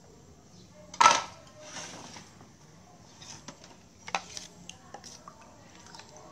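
Dishes and cutlery clinking. A sharp, ringing clink about a second in is the loudest sound. Lighter clinks and taps follow around four seconds in, as a metal spoon scrapes sauce in a melamine bowl.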